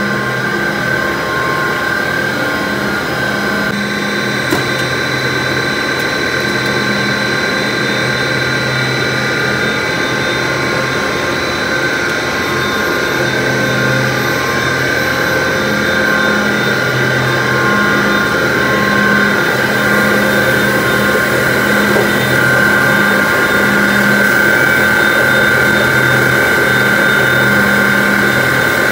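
Steady din of plastic-pipe factory machinery running: a constant high whine, with a low hum that switches on and off every few seconds.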